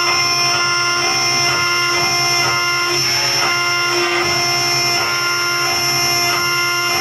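CNC router spindle engraving a steel plate with a small cutter, running steadily with a constant high whine. Background music plays over it.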